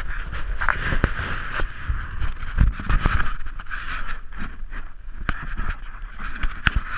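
Handling noise on a GoPro's housing: fingers tapping and rubbing the case give irregular knocks, scrapes and low thumps over a steady high hiss.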